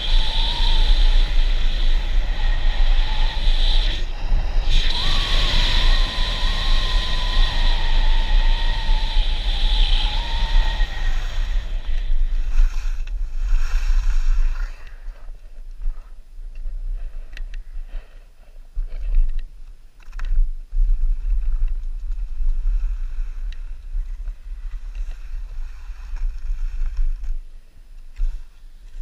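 Skis sliding and scraping on packed snow during a downhill run, with wind rushing over the camera microphone. For the first ten seconds or so a wavering whistle rides on the rush. About halfway through the sound drops quieter, leaving uneven ski scrapes and gusts.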